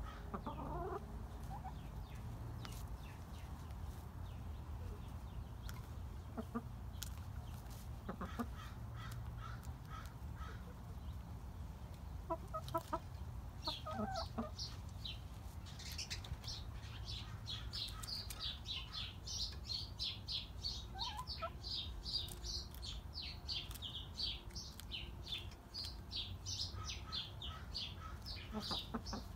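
Backyard hens clucking while pecking at a hanging head of broccoli, with sharp pecking taps now and then. About halfway through, rapid high chirping starts and keeps going.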